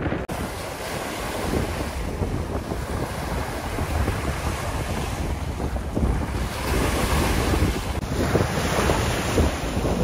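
Wind buffeting the microphone with a steady rushing noise behind it, growing louder in the last few seconds.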